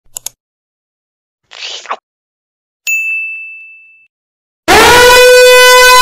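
A short intro of two quick clicks, a whoosh and a bright ringing ding. Then, near the end, a loud, harsh electronic danger alarm blast starts: one steady buzzing horn-like tone.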